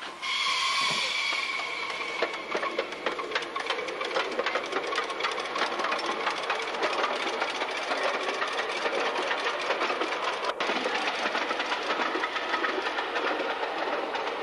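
Ride-on miniature live-steam 0-4-0 locomotive hauling passengers: a short steam whistle as it gets under way, then it chugs along with rapid, even exhaust beats.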